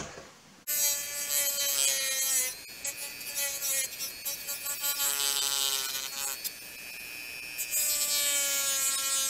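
Small corded rotary tool running at high speed with a cutting bit biting into a hard black plastic panel: a steady high whine over a rasping grind. It starts suddenly about a second in and eases off briefly past the middle before cutting hard again.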